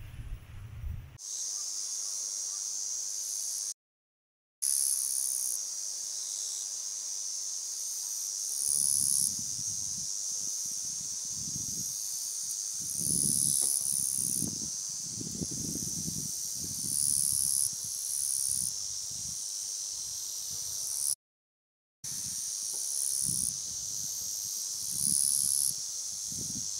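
A steady high buzzing chorus of insects, with louder, higher pulses swelling every second or two. From about nine seconds in, gusts of wind rumble on the microphone, and the sound cuts out briefly twice.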